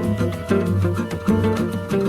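Background music: upbeat Latin-style instrumental with plucked guitar and a steady beat.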